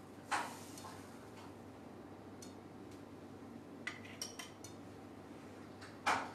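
Kitchen utensil clinks: a metal spoon tapping on a non-stick pan, then a ladle clinking against a glass bowl of batter around the middle, and a sharp click near the end, over a faint steady hum.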